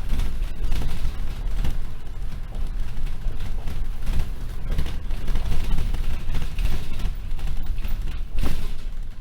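Inside a Collins NexBus on the move: a steady low road and engine rumble with frequent rattles and knocks from the bus body, and a sharper jolt about eight and a half seconds in.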